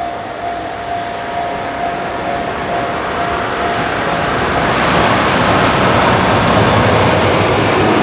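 Oil tank freight train hauled by an EH200 electric locomotive rolling on the rails, its noise growing steadily louder from about four seconds in as it comes closer.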